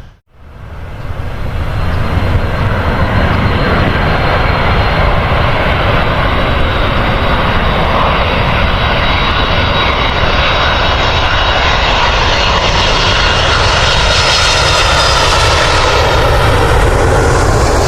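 Jet airliner's engines heard close by: a loud, steady rush with a whine that slowly rises in pitch, then drops near the end as the aircraft passes.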